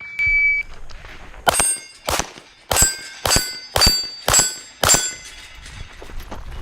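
A short electronic shot-timer beep, then a string of seven pistol shots about half a second apart, each followed by the metallic ring of hit steel targets.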